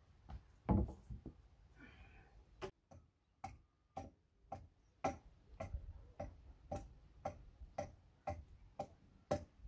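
Sharp wooden knocks at a steady, even pace of about two a second, from work on a peeled wooden pole. They are preceded by a few heavier thumps near the start.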